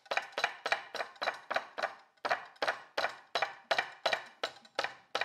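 Fist pounding a raw skinless chicken thigh flat on a cutting board: rapid, even blows, about four a second, with a brief pause about two seconds in.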